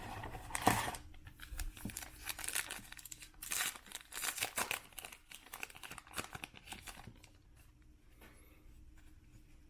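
Foil wrapper of a pack of baseball cards being torn open and crinkled: a run of quick crackling rustles that dies away about seven seconds in.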